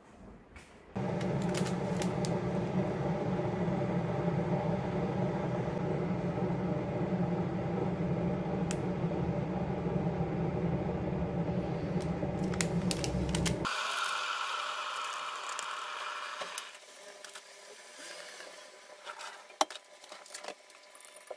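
A kitchen appliance hums steadily, starting suddenly about a second in and cutting off suddenly after about twelve seconds. A short hissing noise follows, then a few light clicks and taps.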